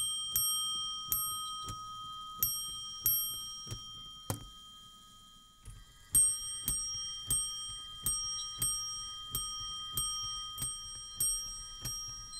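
Electrically driven Meccano clock strike mechanism: its hammer strikes a small metal bell dome, about three strokes every two seconds, each ring carrying on under the next. The striking for eight o'clock ends about four seconds in with a knock. After a short pause, another steady run of bell strikes begins.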